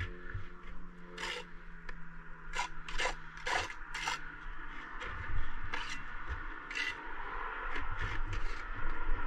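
A run of short, irregular scrapes of a bricklayer's steel trowel working mortar against brick and the spot board, about seven strokes.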